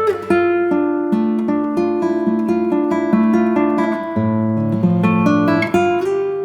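Background music: acoustic guitar played in a steady run of plucked notes.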